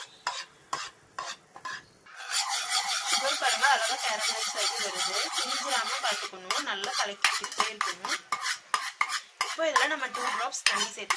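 Steel spoon scraping and stirring sugar melting into caramel in a steel pan, in quick strokes about three a second. About two seconds in, a loud bubbling sizzle starts as the caramel boils, with more scraping strokes over it.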